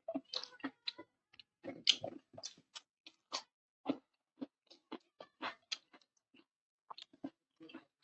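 A person chewing food close to the microphone: an irregular run of short wet clicks and smacks, a few each second.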